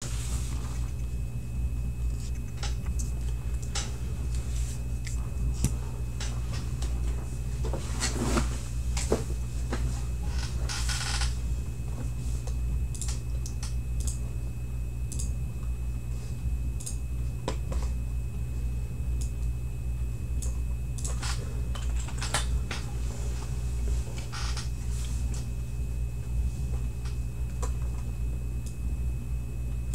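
Room tone: a steady low hum with a thin high whine, and scattered soft clicks and rustles every few seconds.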